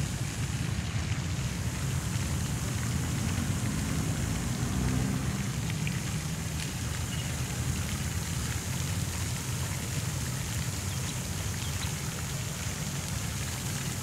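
Fountain jets spraying into a shallow pool: a steady splashing rush of falling water, with a low rumble underneath.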